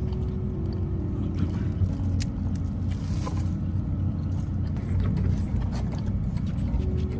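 Steady low rumble inside a car, under soft background music of slow held notes.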